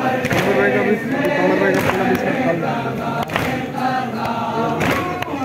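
A crowd of men chanting together in unison, a Muharram mourning chant, with a sharp beat about every second and a half.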